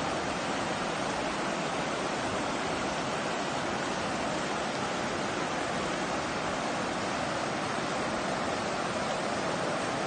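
River water rushing and churning over the rock ledges of a waterfall's rapids, a steady even rush with no let-up.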